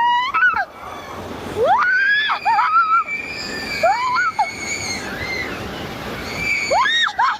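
People whooping and screaming with high, sharply rising cries that overlap, one held for a few seconds, then a fresh burst near the end.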